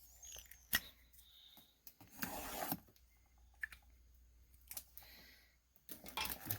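Small handling noises from a sealed trading-card box being picked up and turned over: scattered light clicks, a short rustle about two seconds in, and more rustling near the end.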